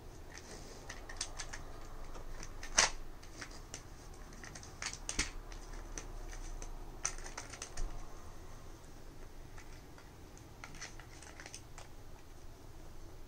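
Plastic dog puzzle feeder clicking and clacking as a pet noses and paws at its sliding covers and lids to get at treats. The clicks are irregular and light, with the loudest, a sharp clack, about three seconds in.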